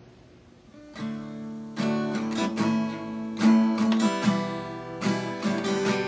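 Steel-string acoustic guitar strumming chords as the introduction to a worship song, beginning about a second in after a moment of quiet room tone.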